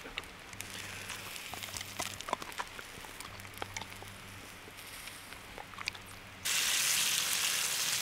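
Light scattered clicks and ticks at first. About two-thirds of the way in, a sudden loud steady hiss starts: a frying pan sizzling on a wick-fed paraffin cooking stove.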